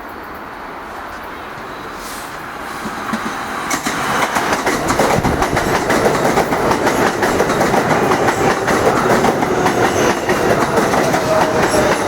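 New York City subway L train rolling in, growing louder over a couple of seconds, then a dense clatter of wheels over rail joints. Near the end a whine slides slowly down in pitch.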